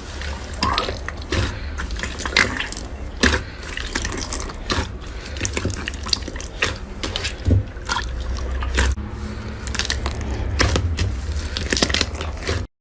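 Slime being squeezed and poked by hand, making a continuous run of wet, sticky clicks and pops. The sound cuts off suddenly near the end.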